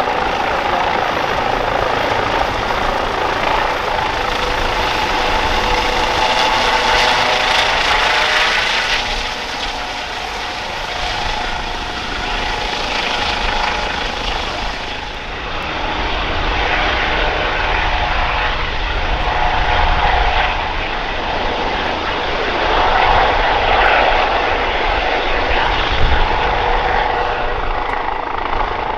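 Eurocopter EC135 P2+ helicopter with twin Pratt & Whitney PW206B turboshaft engines and a ducted Fenestron tail rotor, hovering low and air-taxiing. Its rotor and turbine noise runs loud and steady, with a constant whine over a deep rumble.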